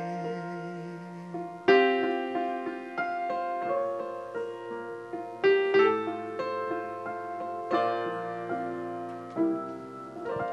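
A piano plays the song's closing bars in slow, ringing chords, each struck and left to die away. A held final note ends about a second and a half in, just before the first chord.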